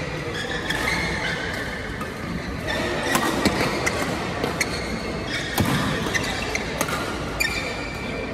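Badminton rally: rackets striking a shuttlecock again and again, a sharp crack roughly every half second to second from about three seconds in. Court shoes squeak on the floor mat between hits, and the hits echo in a large hall.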